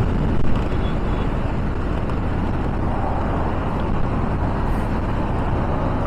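Steady wind rushing over the microphone, with the engine and tyre noise of a motorcycle riding along a highway underneath.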